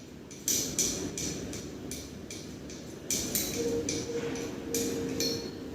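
Light, irregular clicks and taps of computer parts being handled, about eight or nine in all, as the CPU fan and heatsink are readied for mounting.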